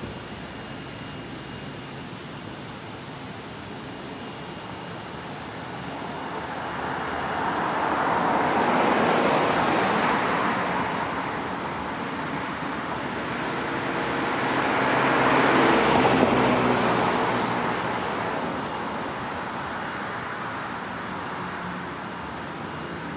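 Cars driving past on a town street, their tyre and engine noise swelling and fading twice, loudest about nine seconds in and again about sixteen seconds in.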